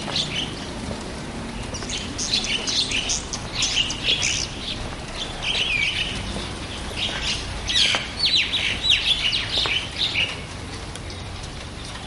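Small birds chirping: a busy run of short, quick calls and downward-sweeping chirps that starts about two seconds in and fades out near the end.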